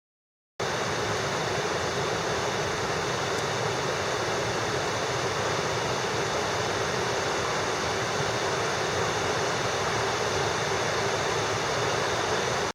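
Steady rush of flowing water from a mountain headwater stream, cutting in suddenly about half a second in.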